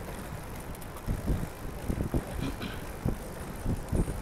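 Recumbent racing trike riding along wet pavement: steady tyre and drivetrain noise with wind buffeting the microphone, and several short low bumps.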